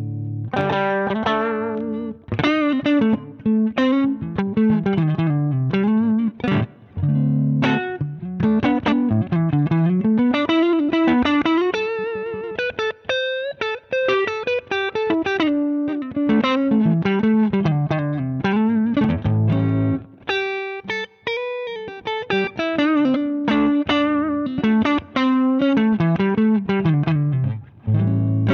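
Electric guitar played through a Zander Circuitry Surplus overdrive pedal: melodic single-note runs climbing and falling, mixed with chords, with brief breaks between phrases.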